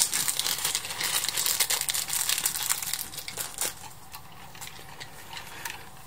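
Plastic packaging crinkling and rustling with small clicks as it is handled and opened to get at the switch's included wire nuts; it dies down after about three seconds, with one more click shortly after.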